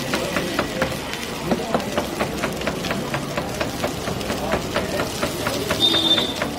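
Water boiling hard in a black iron pan on a gas burner, with a steady run of sharp knocks about four a second over it.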